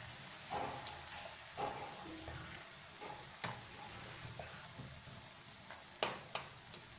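Onion-tomato masala sizzling faintly in a nonstick frying pan. Eggs are cracked and dropped into the pan: one sharp crack about three and a half seconds in, and two more close together near the end.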